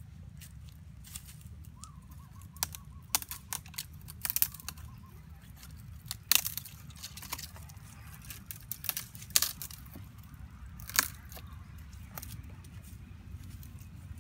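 Dry twigs cracking and snapping as they are broken off by hand, in a string of sharp irregular snaps, over a steady low rumble.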